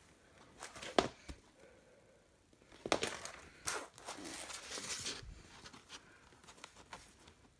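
Hands handling a vinyl LP jacket in its glossy plastic wrap: a sharp tap about a second in and another just after, then about two seconds of crinkling and rubbing of the plastic as the record is picked up and turned over, followed by a few light ticks.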